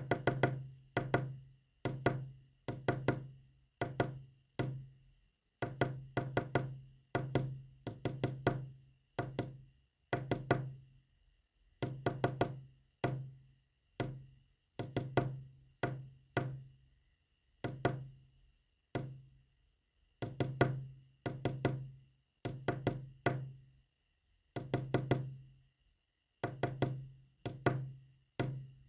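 Morse code sent as a run of knocks, each with a short low ringing tone, some clipped short and some drawn out, in irregular groups separated by pauses. A faint steady high whine sits underneath.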